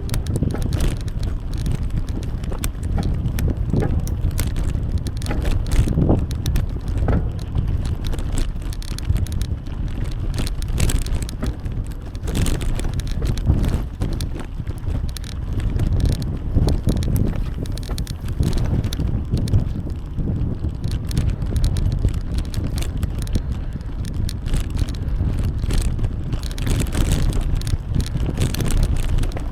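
Riding noise from a bicycle: a steady low rumble of wind on the microphone and rolling tyres, with scattered small clicks and rattles from the bike.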